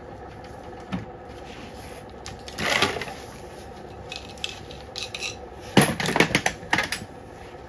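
Metal tools and parts clinking and clattering as they are handled and set down: a rustle about three seconds in, then a quick run of sharp metallic clicks near the end.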